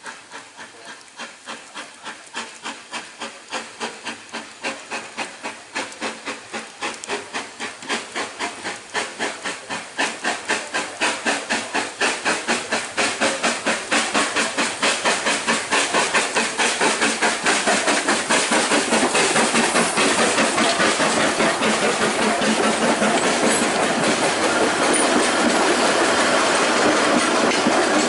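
Narrow-gauge steam tank locomotive approaching under power, its exhaust chuffing in an even beat that grows steadily louder as it nears. Near the end its coaches roll past.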